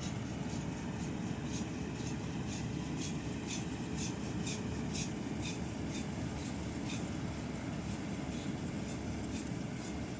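Excavator's diesel engine running steadily, with a light regular clicking about twice a second over the low rumble.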